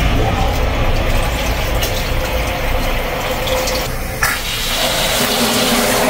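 Water running steadily into a container as it fills up.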